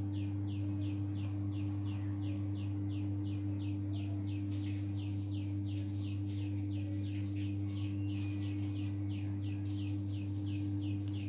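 A rapid, even run of short high chirps, each falling slightly in pitch, about three a second, over a steady low hum. A faint rustle joins from about four seconds in.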